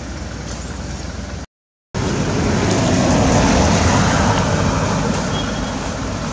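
Road traffic noise: a steady rumble that cuts out for about half a second near the start, then a motor vehicle passing, swelling a few seconds in and slowly fading.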